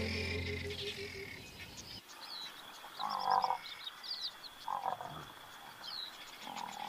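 Background music fading out, followed by outdoor ambience: three short croaks, likely frogs, with high bird-like chirps and a steady high insect-like whine.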